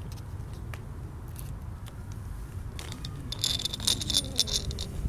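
Light clicks and a jingling rattle of small toy warship parts being handled on a stone paving slab, the jingling strongest for about two seconds near the end, over a steady low outdoor rumble.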